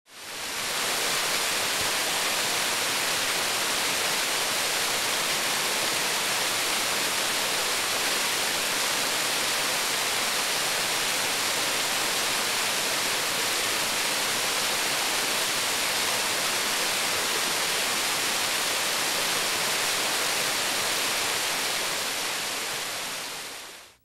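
Steady rushing of a mountain waterfall cascading down a rock face. It fades in at the start and fades out just before the end.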